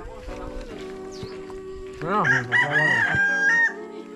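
A rooster crowing once, about two seconds in: a rising call that ends in a long held note and stops abruptly.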